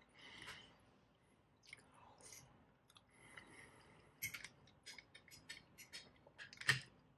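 A person chewing a mouthful of sardines, with light clicks of a metal fork against an open sardine tin and plate; the sharpest click comes near the end.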